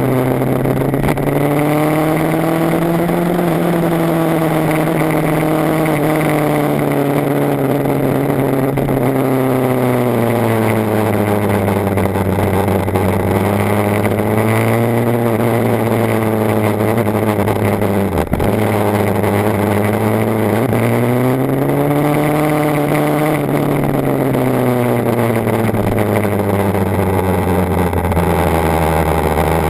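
BMW HP4's inline-four engine running as the bike is ridden, its pitch rising and falling slowly several times as it speeds up and slows. About two-thirds of the way through, the note drops sharply for a moment and then climbs again.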